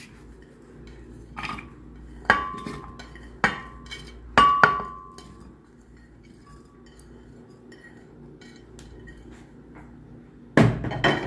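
Ceramic plate clinking against a glass blender jar as chopped vegetables are tipped and scraped in: several sharp clinks in the first five seconds, two of them ringing briefly, then soft scraping, and a louder knock near the end.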